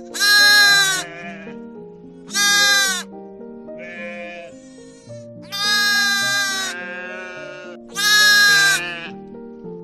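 Repeated loud bleating from livestock: four long calls about two to three seconds apart, with fainter bleats between them, over background music.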